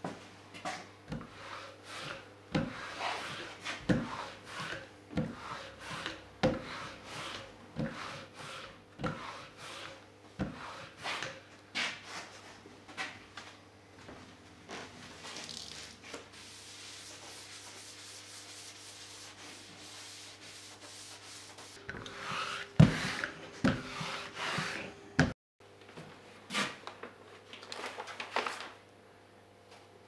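Hand work on a lithographic stone: rubbing strokes with a light knock about once a second, then a stretch of steady hiss and a burst of louder knocks and clatter, over a low steady workshop hum. The sound cuts off abruptly and quieter handling follows.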